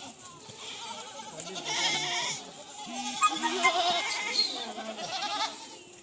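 Several goats bleating, their wavering calls overlapping one another.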